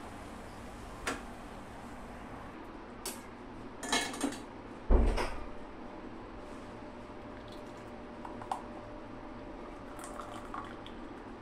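Metal kitchenware clinking and knocking, a steel tumbler and aluminium pot being handled: a few sharp clicks, then a hard knock with a thud about five seconds in. A short pour of hot barley milk into the steel tumbler comes near the end, all over a steady low hiss.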